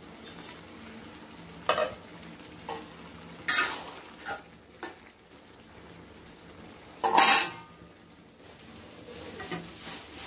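A spoon scraping and knocking in an aluminium cooking pot as beef liver and lung pieces are stirred so they don't stick to the bottom, over a faint sizzle. A loud ringing clatter about seven seconds in as the glass lid is set back on the pot.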